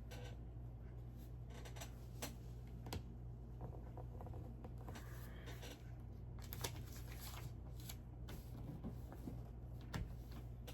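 Faint scattered clicks and light rustling of small plastic Lego pieces being handled and pressed together, over a steady low hum.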